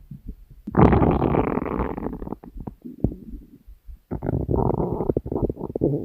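A person's stomach growling: a loud, crackling gurgle about a second in that lasts over a second, then a second gurgling growl about four seconds in that trails off in a short falling groan.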